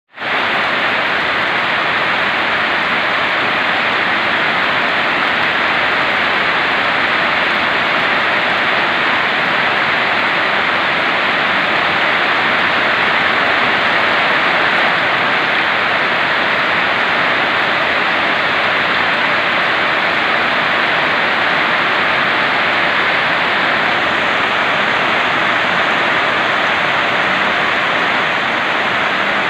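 Heavy rain pouring down in a steady, even rush that neither builds nor eases.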